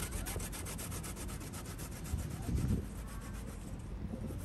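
Peeled raw cassava being grated on a stainless steel box grater: rapid, regular rasping strokes that grow fainter about three seconds in. A dull bump comes a little past halfway.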